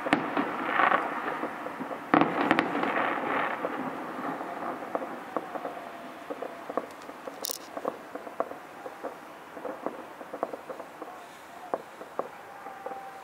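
Firecrackers and pyrotechnic bangs going off across a city: a dense crackle with a loud bang about two seconds in, thinning to scattered pops, with a short hiss about halfway through.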